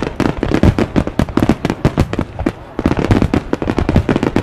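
Fireworks display: a rapid barrage of aerial shells bursting, several bangs a second with no pause.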